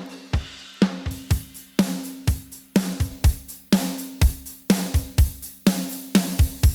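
Recorded drum kit playing a steady groove of kick, snare, hi-hat and cymbal, run through a vintage-style compression and noise plugin. The kick and snare hit about twice a second, and the snare rings on after each stroke.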